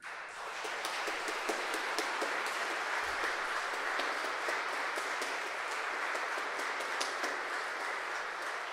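Audience applauding in a large stone church: a dense patter of many hands clapping that starts suddenly and holds steady.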